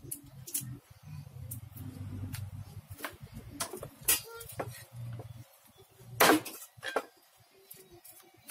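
A cleaver and lemongrass stalks knocking and scraping on a wooden chopping board as the stalks are trimmed. Scattered sharp knocks, the loudest a little past six seconds in, with a low hum underneath that stops about halfway through.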